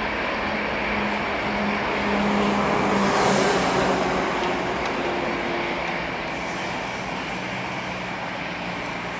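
Boeing C-40C's twin CFM56-7 turbofan jet engines running at high power as the jet rolls away down the runway; the roar swells to its loudest about three seconds in, then slowly fades.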